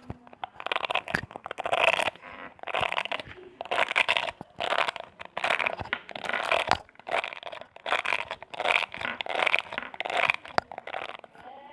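Bristles of a brush scraped in repeated close-up strokes, about one swish a second.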